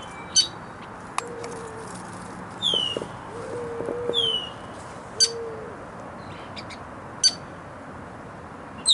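Wild birds calling: short sharp chips and downward-sliding whistled notes every second or two, with three lower, drawn-out notes underneath.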